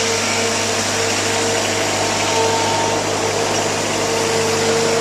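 A machine's engine or motor running steadily at an even pitch, with a constant hum under a dense mechanical noise.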